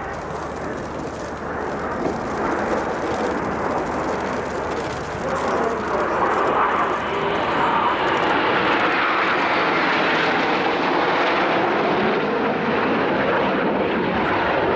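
Jet noise from a formation of Aermacchi MB-339 jet trainers flying past, a steady rush that grows louder about five seconds in and stays loud, its hiss sweeping in pitch as the jets pass.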